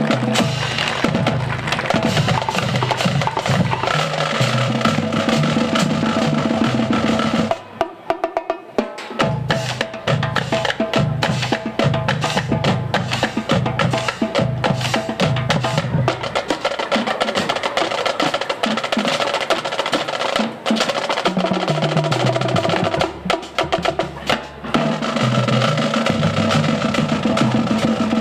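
Marching band playing a parade tune: rapid snare and drum strokes under held notes, with a short break about eight seconds in.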